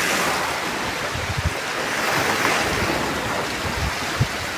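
Sea waves washing over a rocky shore, a steady hiss that swells about twice, with low wind buffets on the microphone.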